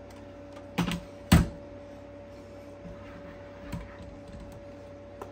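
Two sharp metallic knocks about half a second apart, the second louder, then a faint knock later, from handling the heavy all-metal RC excavator. A faint steady hum runs underneath.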